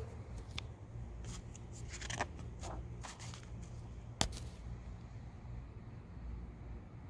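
Paper pages of a printed catalog being handled and turned: a run of short rustles and crinkles over a few seconds, with one sharp paper snap about four seconds in, over a steady low hum.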